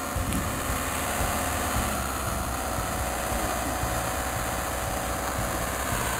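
Motorhome's engine running as it creeps forward at low speed and draws close, a steady rumble without change in pace.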